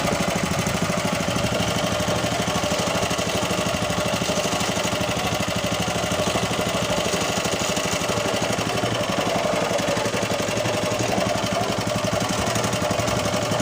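Honda GX120 single-cylinder four-stroke engine driving a ketinting longtail boat, running steadily at an even speed.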